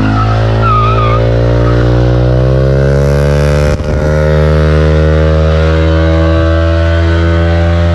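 Motorcycle engine running close by at fairly steady revs, rising slightly in pitch in the first second, with a brief dip about four seconds in.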